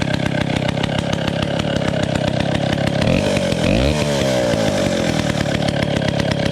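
Vintage Pioneer RA two-stroke chainsaw running steadily just after a cold start. Its pitch briefly rises and falls about three seconds in.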